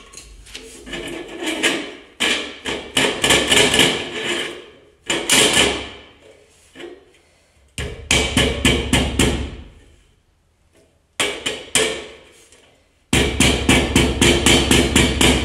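Hammer blows in quick runs of about four or five a second, in several bursts with short pauses between, driving a tight-fitting piece into its slot through a protective cover.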